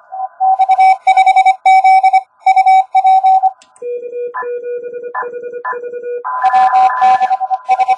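Morse code (CW) from an Index Labs QRP+ transceiver on 10 metres. For the first three and a half seconds, incoming dots and dashes at a mid-high pitch sound over filtered band hiss. For about two seconds after that, a lower-pitched keyed tone with no hiss is the transmit sidetone as the operator sends on the paddle. Then the higher-pitched received signal and hiss return.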